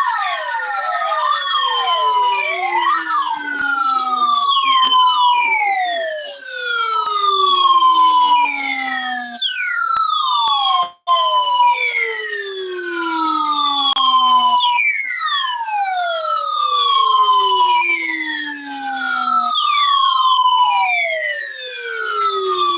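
Electronic alert sirens set off by a NOAA Weather Radio required weekly test. Several overlapping siren tones each fall in pitch over about five seconds, then jump back up and repeat, with a brief cut about eleven seconds in.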